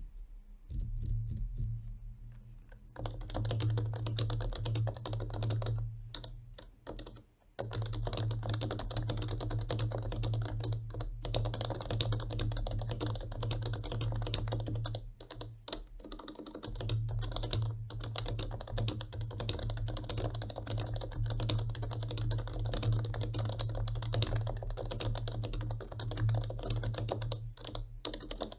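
Steady fast typing on an HHKB Professional Classic keyboard with Topre electrostatic capacitive switches, lubed with Krytox 205G0. The keystrokes are lighter for the first few seconds, then dense and continuous, with short breaks about 7 and 16 seconds in.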